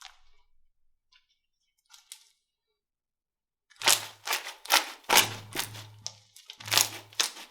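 Slime being worked by hand, crackling and popping: a few faint clicks early, then about halfway in a rapid run of sharp crackles and pops.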